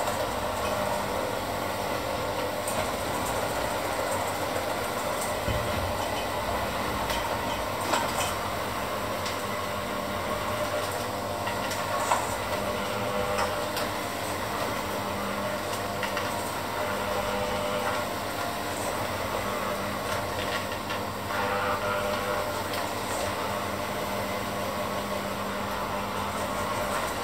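Electric hand mixer running steadily, its beaters churning a thick mixture in a stainless steel bowl, with a few brief clicks along the way.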